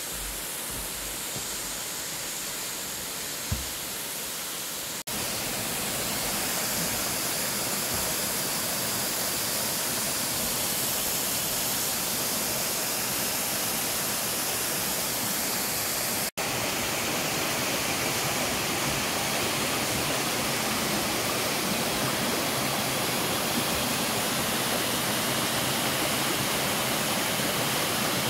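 Waterfall pouring down a rock face: a steady, full rush of falling water, with a single short knock about three and a half seconds in. The rush drops out for an instant twice and is louder after the first break.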